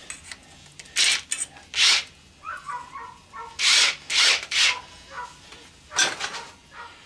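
Short scraping and rubbing strokes, about seven in three clusters, as parts of a washing machine assembly are worked and pried apart by hand during teardown.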